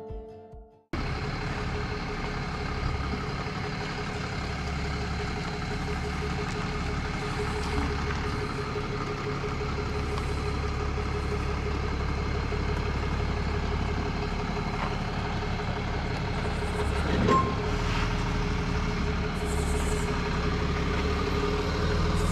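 Heavy tow truck's diesel engine idling steadily, a low rumble with a steady whine over it. A few bars of music end about a second in.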